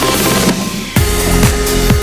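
Electronic dance music with a steady kick-drum beat; a rising noise sweep about half a second in drops into a new section with a held synth note about a second in.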